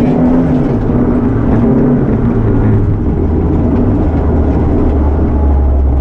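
Ford Ka rally car's engine heard from inside the cabin, under load on a dirt stage over steady road and tyre noise. Its revs fall in the second half as it slows.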